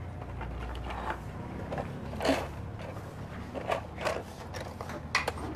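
Plastic toy train lantern being picked up and handled: scattered light plastic clicks and knocks, the loudest about two seconds in.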